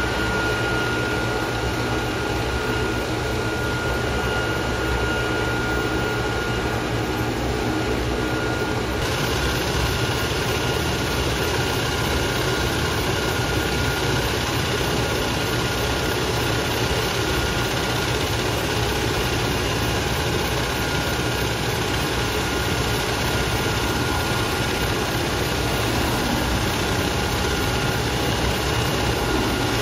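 Medical helicopter hovering low over a rooftop helipad as it comes in to land, its rotor and engines running steadily with a steady high whine. The sound turns a little brighter about nine seconds in.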